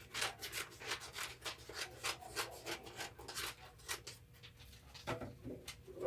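Handling noise from the covered phone: cloth or hands rubbing over the microphone in a quick run of scratchy strokes, with a few duller bumps about five seconds in.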